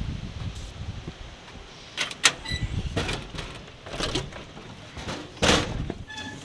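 Cottage door being opened by hand: a string of sharp clicks and knocks from the doorknob, latch and door, twice with a brief metallic ring.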